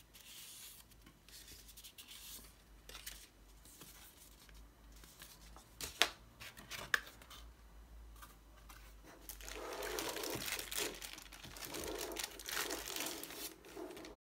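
Unboxing handling sounds: light rustling of paper leaflets, two sharp taps about six and seven seconds in, then loud crinkling of a clear plastic bag over the last five seconds as the wireless mouse is taken out of it.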